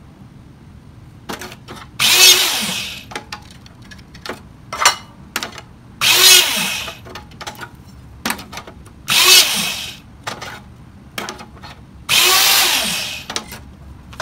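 Electric hydraulic hole punch running four times, about a second each, each run driving a punch through 1/8-inch angle iron, with the motor's pitch dropping under load. Between the strokes come clicks and clanks of the steel pieces being handled and flipped. The recording is sped up.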